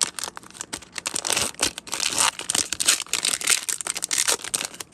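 A hockey card pack's plastic-foil wrapper being torn open and peeled apart by hand, a dense run of crinkling and tearing crackle.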